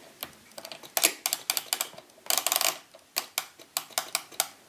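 The setting mechanism of a Toshiba flip radio alarm clock clicking as it is adjusted. It gives a string of sharp clicks, with a quick rattling run a little past halfway.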